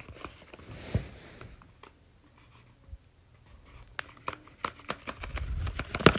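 Paper dragon puppet being handled: soft paper rustling with scattered light clicks, a sharper knock about a second in, and the clicks coming more often near the end.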